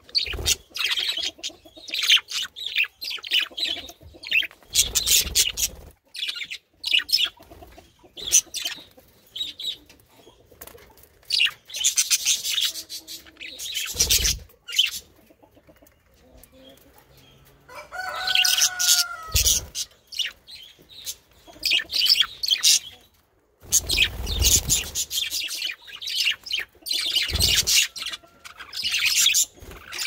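A group of male budgerigars chattering and warbling in rapid chirps, with a few short bursts of wing flapping and one longer, clearer call about two-thirds of the way through.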